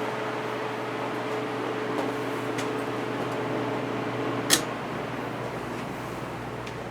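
Codep industrial ceiling fan running with a steady whir and a motor hum. About four and a half seconds in there is a single sharp click, and the hum drops away, leaving the whir.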